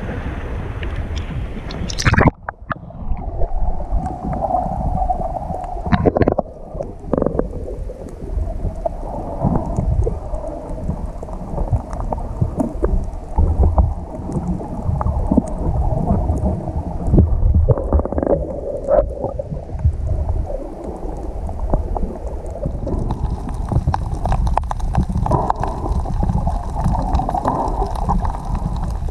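Water sloshing and splashing against a camera at the sea surface. About two seconds in there is a splash and the sound turns to the muffled, low rumble of the camera underwater, with gurgling water and bubbles and small knocks as the freediver swims.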